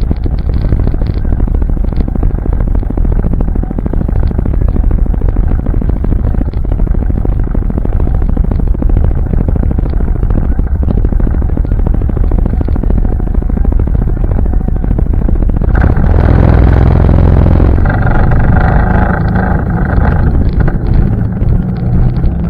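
ATV engine running as it is ridden along a trail, with wind buffeting the microphone; the engine gets louder for a couple of seconds about sixteen seconds in.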